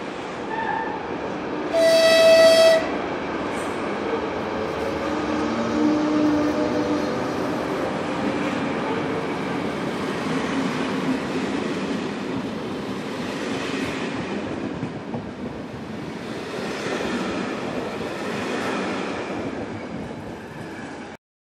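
Czech Railways electric locomotive sounds one horn blast of about a second, then it and its passenger coaches run past close by with a steady rumble of wheels on rail. The sound cuts off suddenly near the end.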